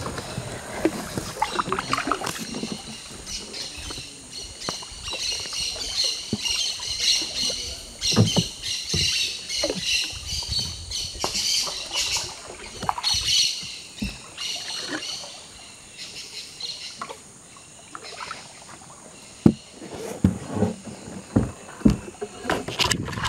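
Wooden paddles dipping and splashing and knocking against the side of a wooden dugout canoe, stroke after stroke, with sharper knocks near the end. Birds call with repeated high chirps through the middle.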